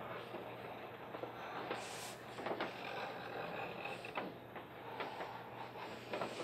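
Red wax crayon rubbing on paper as a small area is coloured in at medium pressure: a faint scratchy shading sound broken by short strokes now and then.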